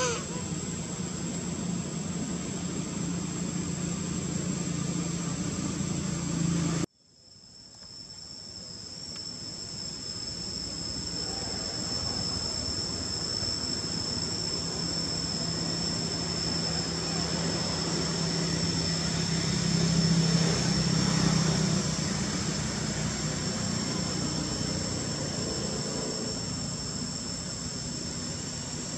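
Steady high-pitched insect buzzing from crickets or similar insects, over a low steady hum such as a distant engine. About seven seconds in the sound cuts out abruptly and fades back in over a few seconds.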